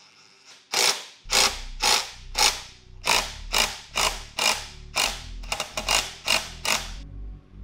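Hand ratchet clicking in repeated strokes, roughly two a second, as it turns the forcing screw of a crankcase splitter to push apart the halves of a Honda CR250 two-stroke engine's crankcase.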